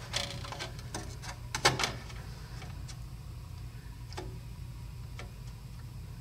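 Light clicks and taps of a gate-operator circuit board and its mounting screws being handled as the board is seated on its standoffs in the metal enclosure, with a sharper click just under two seconds in and only occasional ticks after. A steady low hum runs underneath.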